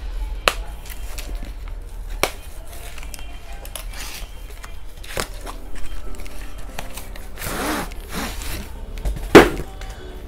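A cardboard box being cut open and unpacked: a blade slitting the packing tape, cardboard flaps and a rolled sheet rustling, and several sharp knocks, the loudest near the end.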